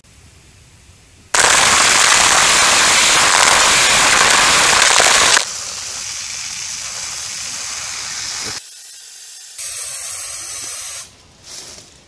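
Water spray hitting the plastic splashbag around a small action camera. It comes on suddenly about a second in as a loud, even hiss, drops to a quieter hiss after about four seconds, then shifts level in steps before stopping near the end.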